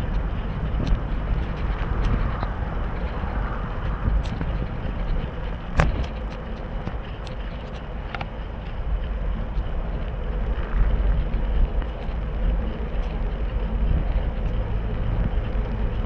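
Low rumble of wind buffeting the microphone while the camera moves, with scattered sharp clicks, the loudest about six seconds in.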